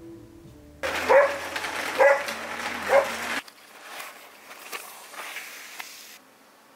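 Three loud, short barks about a second apart. Then rustling with small clicks as the wrapping is pulled off a mirror.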